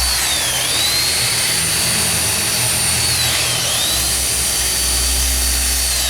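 Chainsaw running at high speed with a steady high whine. Its pitch dips twice, about half a second in and again just past three seconds in, and each time climbs back, as the saw slows under load while cutting the pumpkin.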